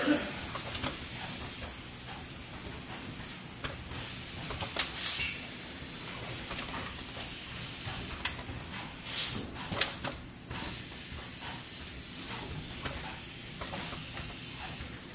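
Pneumatic actuators and valves of a circuit-board test cell cycling: sharp clicks and several short hisses of exhaust air, the loudest about five seconds and about nine seconds in, over steady background noise.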